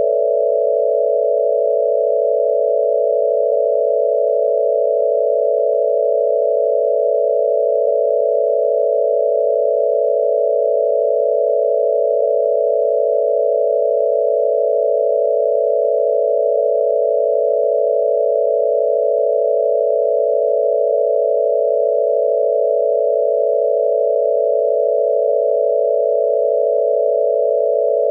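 VHS-noise sound effect: a steady, unchanging hum of several close tones, like a dial tone, with a faint tick about every four seconds.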